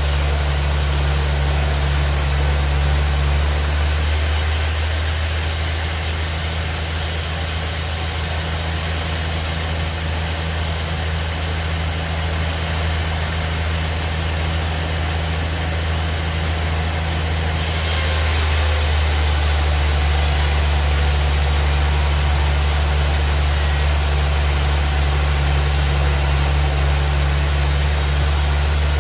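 Band sawmill machinery running steadily: a constant low engine-like hum over a hiss. The sound drops a little in level and tone a few seconds in, then comes back up a little past halfway.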